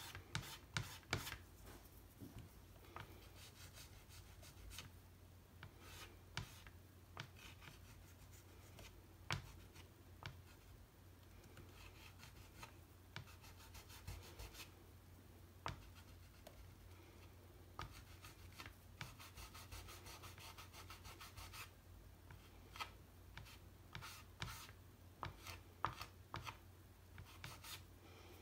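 Soft pastel being worked onto textured watercolour paper: faint scratchy strokes from a pastel stick and rubbing from fingers blending it, with small taps. A low steady hum lies underneath.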